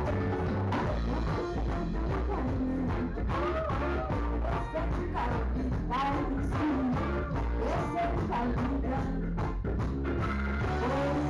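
Live band playing a song: electric guitars, bass, drum kit and keyboard, with a lead singer whose sung lines come in and out over the steady beat.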